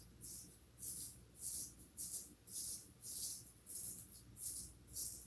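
A cutting tool raked repeatedly through synthetic braiding hair, in short swishing strokes about two a second.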